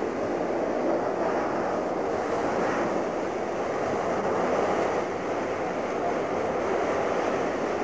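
Strong desert wind, the Harmattan, blowing steadily.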